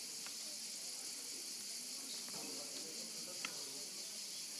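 A steady, high-pitched insect chorus, with a couple of faint taps about a quarter second in and again past three seconds.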